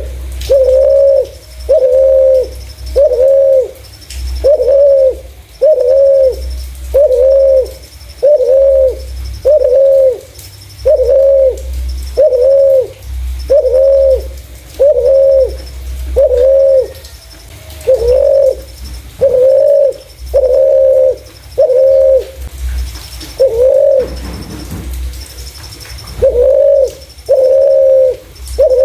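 Spotted dove cooing steadily, a run of short clear coos about one a second, breaking off for a couple of seconds before resuming. A faint high-pitched note repeats in the background.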